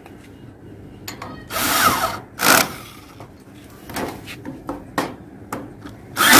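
Coated iron pipes and metal clamps being handled and fitted together: scattered clicks and knocks, two short scraping rushes a little after a second in, then a loud steady noise with a low hum starting near the end.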